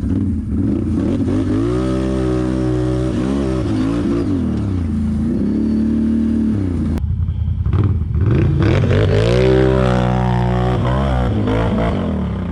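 ATV engine revving up and down under load on a hill climb, in two long surges of rising and falling pitch with a short break between them about halfway through.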